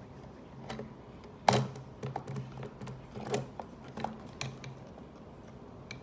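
Hard plastic clicks and knocks as a chainsaw's clutch and chain-brake side cover is pressed and worked onto the saw body. One sharp knock about one and a half seconds in is the loudest, followed by a scatter of lighter clicks.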